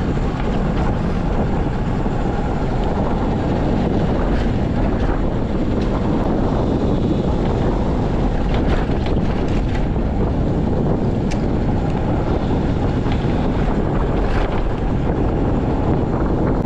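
Steady wind rush on a GoPro microphone while riding a Bajaj Pulsar NS200 motorcycle, with the bike running underneath it.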